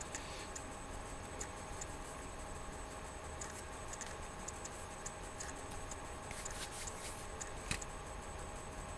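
Quiet room tone: a steady low hum with scattered, unevenly spaced faint clicks and ticks, one a little louder near the end.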